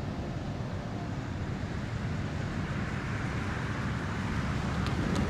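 Steady low rumble of motor vehicle engines, slowly growing louder, with a couple of light clicks near the end.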